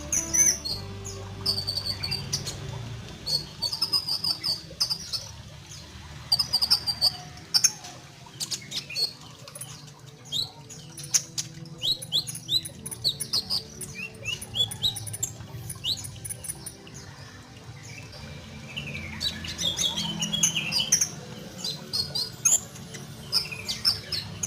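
Young male olive-backed sunbird, moulting from green juvenile plumage, singing: clusters of short, high-pitched chirps and quick twittering trills with brief pauses between phrases. The bird is just beginning to sing regularly.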